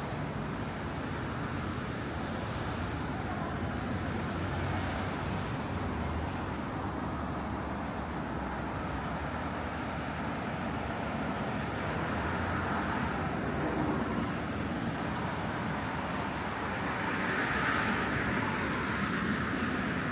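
Steady road traffic noise, with vehicles passing and the sound swelling twice, about two-thirds of the way through and again near the end.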